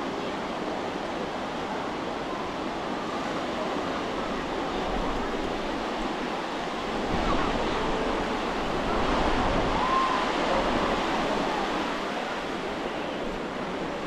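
Ocean surf breaking and washing up the beach: a steady rushing sound that swells louder twice in the second half.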